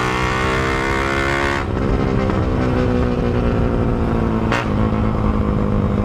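Suzuki Raider 150 carb single-cylinder four-stroke engine running loud through an open HGM exhaust while riding. About a second and a half in the throttle eases off and the note drops, then it settles to a lower steady note, with one short click later on.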